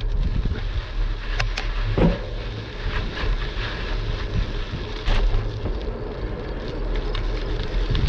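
Wind rumbling and buffeting the microphone of a GoPro action camera while riding a bicycle, over the hiss of the tyres on a sandy paved path. A few sharp clicks and knocks from the bike and camera mount break through, one about two seconds in and another about five seconds in.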